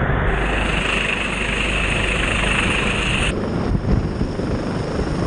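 Rescue helicopter hovering low overhead: dense, steady rotor and engine noise mixed with the rush of its downwash. A high hiss in the sound drops out abruptly about three seconds in.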